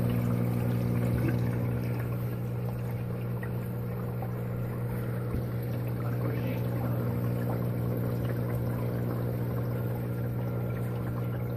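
Saltwater aquarium sump running: a steady electric hum from the pump under a constant trickle and splash of water pouring into the LifeReef acrylic sump.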